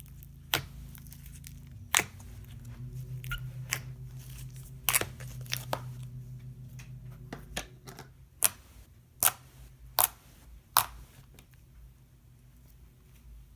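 Close-range handling noises: a run of sharp clicks and crackles, with four louder snaps between about eight and eleven seconds in, over a steady low hum.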